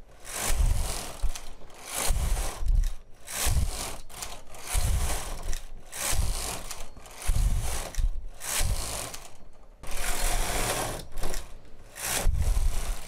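Domestic knitting machine's carriage pushed back and forth across the main bed and ribber, knitting a 10-row rib: about ten rattling passes, one per row, with a low thud at many of the turns.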